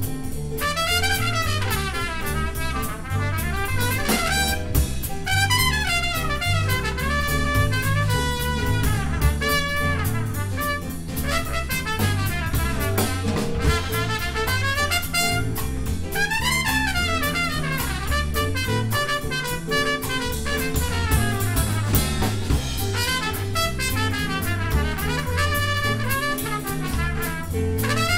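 Live jazz combo with a trumpet soloing in fast runs that climb and fall, over a rhythm section with drum kit.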